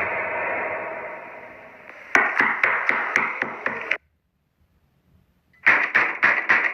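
Horror sound effect of rapid knocking on a door: about seven hard knocks at about four a second that stop abruptly, a short silence, then a second burst of about five knocks near the end. Before the knocking, an echoing eerie tone fades out.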